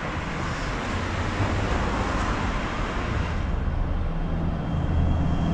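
Road traffic: a motor vehicle's low engine rumble with tyre noise, growing louder in the last couple of seconds. A thin steady high whine joins in about three and a half seconds in.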